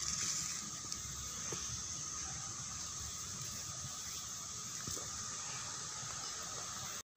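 Steady high-pitched insect drone, with a few faint rustles and clicks of leaf litter being handled; the sound drops out briefly near the end.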